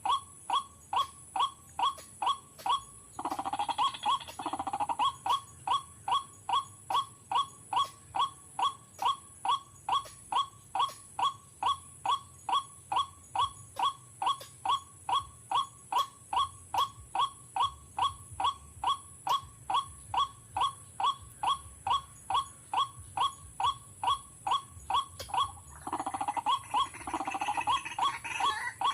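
White-breasted waterhen calls: a monotonous run of short "wak" notes, about three a second. About three seconds in there is a louder, rougher burst of overlapping croaking calls, and again near the end.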